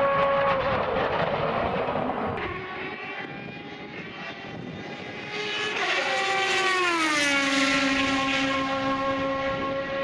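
Rebellion Lola B12/60's Toyota 3.4-litre V8 racing engine at high revs passing close by at speed. The note grows loud about five and a half seconds in, its pitch slides smoothly down as the car goes past, then holds steady as it draws away down the straight.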